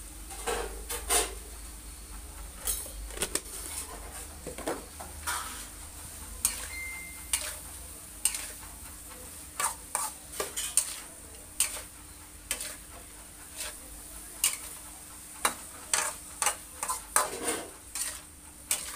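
A metal ladle clanks and scrapes against a stainless steel wok, stir-frying snails in their shells, in irregular sharp clacks, several in quick runs. A steady high hiss runs underneath.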